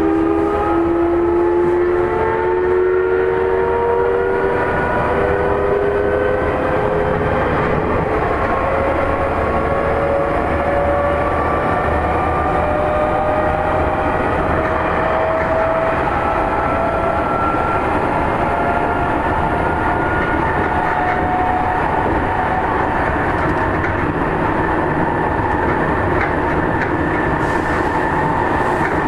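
Seibu 9000 series electric train accelerating: a whine of several tones from the traction motors rises slowly in pitch for about twenty seconds. It then fades into steady rumbling running noise of wheels on rail.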